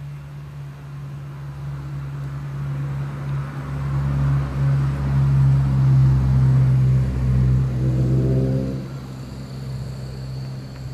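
Steady motor hum and rumble of a large-scale model Shay locomotive running along a garden railway, pushing a car. It grows louder toward the middle and eases off near the end.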